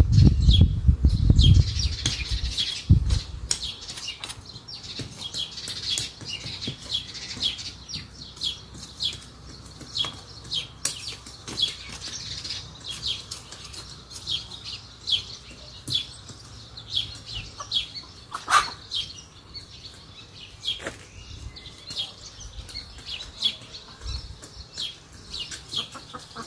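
Birds chirping over and over, short high calls several times a second, with faint scraping and ticking of hand tools working dry garden soil. A low rumble sounds in the first two seconds.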